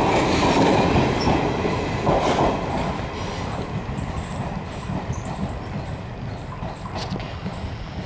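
Passenger train coaches rolling past, their wheels clattering on the rails. The sound fades steadily as the tail of the train draws away.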